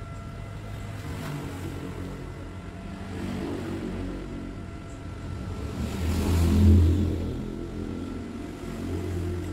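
Low engine rumble of a motor vehicle, swelling to its loudest about two-thirds of the way through, then easing off.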